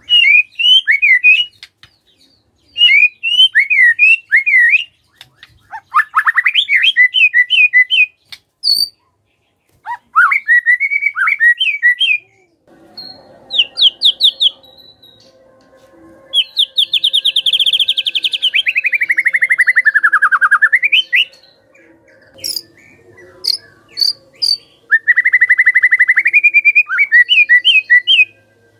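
White-rumped shama singing: loud bursts of varied, rapid whistled phrases and trills. In the middle comes a long, fast rattling trill that slides down in pitch, and later several short, sharp clicking notes.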